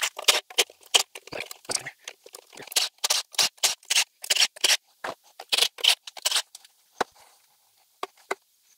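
Timing cover bolts on a small-block Chevy being run out with a cordless power tool: many short, sharp bursts of metallic rattling and clicking, two or three a second. Near the end they give way to a few single clicks as the cover is handled.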